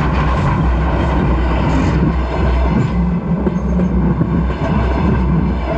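Railway carriages rolling directly overhead: their steel wheels and bogies running on the rails in a loud, steady low rumble.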